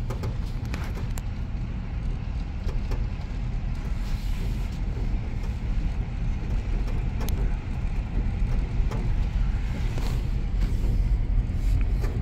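Steady rumble of a vehicle's engine and tyres heard from inside the cabin while it drives slowly on an unpaved dirt road, with a few light clicks or rattles.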